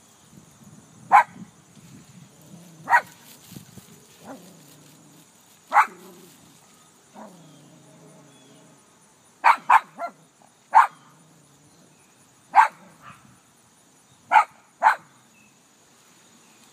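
Dog giving single sharp barks, about ten in all, with a quick run of three just past the middle, barking at its own reflection in a parked car.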